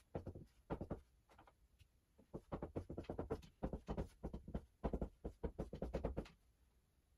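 Dry-erase marker writing on a whiteboard: a quick run of short strokes and taps that stops about six seconds in.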